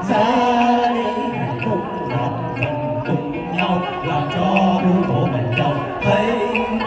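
Vietnamese folk song medley: singers with instrumental accompaniment over a stage sound system, with a light, regular percussion tick.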